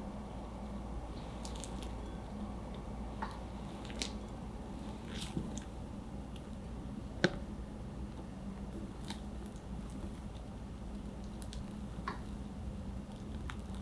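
Wire balloon whisk folding meringue into thick chocolate batter in a glass bowl: soft squishing of the batter, with a few sharp clicks of the whisk wires against the glass, the loudest about seven seconds in.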